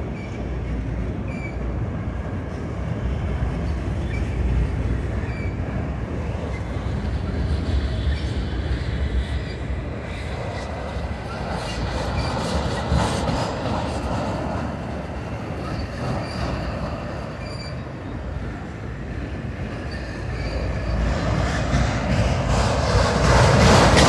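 Loaded autorack freight cars rolling past at slow speed: a steady rumble and rattle of steel wheels on rail, growing louder over the last few seconds.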